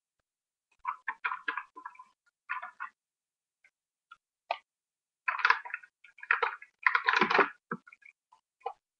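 Small plastic makeup containers being handled close to the microphone: short bursts of clicking and clattering, loudest between about five and seven and a half seconds in.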